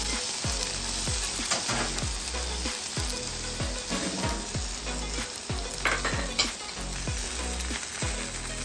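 Smoked beef chuck roast and onion quarters sizzling steadily in beef tallow on a hot flat-top griddle, with a few light clicks.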